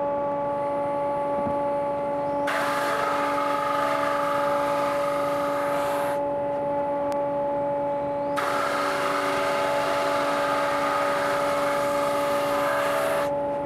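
Conveyor drum sander and its hose-connected Metabo SPA 1200 dust extractor running with a steady hum. A wooden slab is fed through twice, each pass adding a loud abrasive hiss of sandpaper on wood, one of about three and a half seconds and one of about five seconds.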